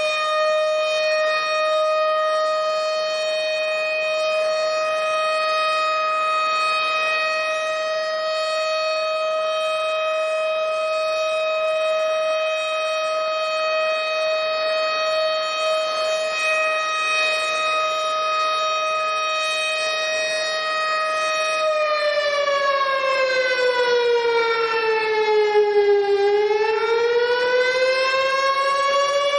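Tornado warning siren sounding a long, steady wail on one pitch, then near the end sliding down in pitch and rising back up again.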